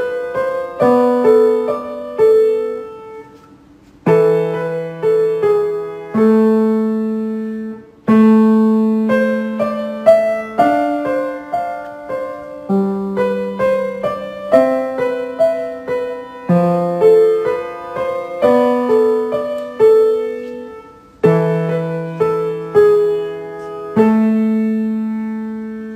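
Grand piano played by a young girl: a slow melody over chords, notes struck and left to ring, in short phrases with brief breaks between them. A last chord near the end is held and dies away.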